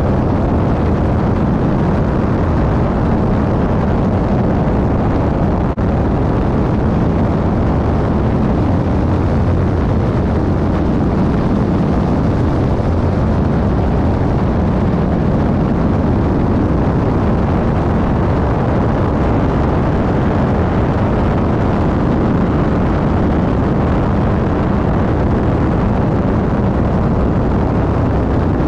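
Loud, steady rush of airflow buffeting a camera mounted on the tail of a Super Decathlon light aircraft in flight, mixed with the plane's engine and propeller noise. It dips for an instant about six seconds in.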